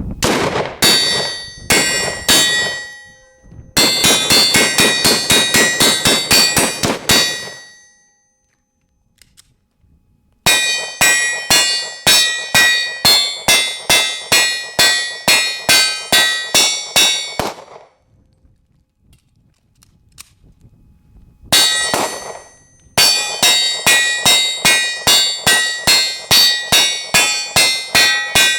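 AR-15 pistol fired semi-automatic in rapid strings of about three to four shots a second, with a ringing tone hanging over each string. After a few opening shots come three long strings, broken by pauses of a few seconds that fit magazine changes.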